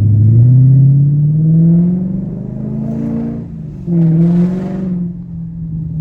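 2001 Audi S8's V8 engine revving: the revs climb for about two seconds and fall back, then a short second rev about four seconds in settles back to a steady rumbling idle.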